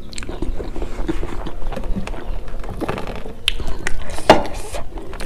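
Close-miked chewing and lip-smacking of a mouthful of rice and curry, a busy run of wet clicks and smacks, with a couple of louder sounds about three and four seconds in.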